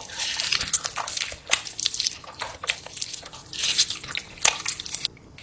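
Close-miked mukbang eating: wet chewing and mouth smacks with many irregular little crunchy clicks.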